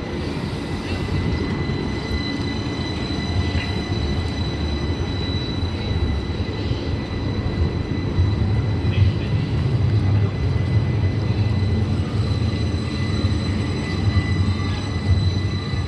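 CAF Urbos low-floor electric tram starting off from a stop and rolling past close by on street track: a low rumble of wheels on rail that swells about halfway through, with a faint steady high whine.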